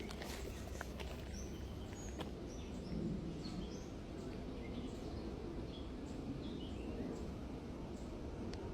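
Birds chirping: short, high calls scattered through, over a steady low outdoor rumble.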